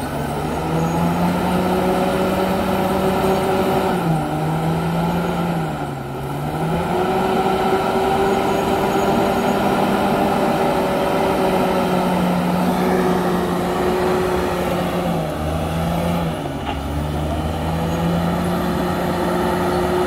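Komatsu D68ESS crawler dozer's diesel engine running hard while the blade pushes earth. The engine note dips and recovers several times as the machine takes load.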